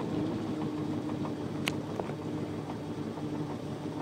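Tow boat's engine running steadily at idle as the boat creeps away from the dock, taking up the slack in the ski rope. A single brief click about a second and a half in.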